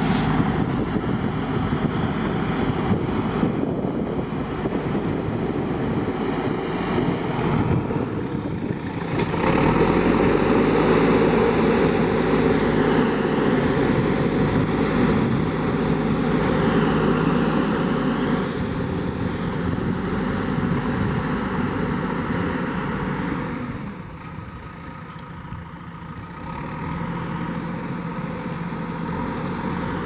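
JCB 3DX backhoe loader's diesel engine running steadily under load as the front bucket pushes and levels soil. The engine gets louder about a third of the way in and drops off for a few seconds about three quarters of the way through before picking up again.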